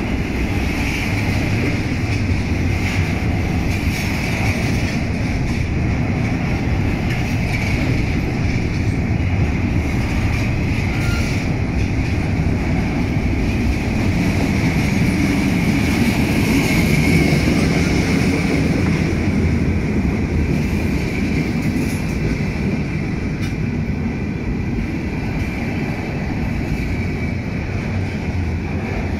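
Heavy freight train's cars passing at close range: a steady low rumble of steel wheels on rail, with a continuous high squeal over it.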